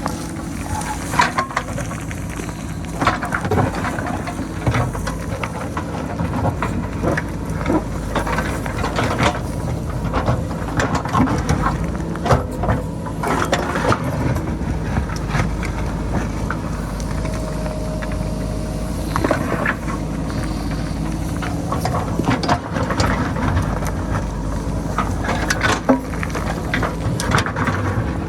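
JCB backhoe loader's diesel engine running steadily under load while its bucket digs into a rocky hillside, with frequent irregular clatters and knocks of stones and rock breaking loose and tumbling.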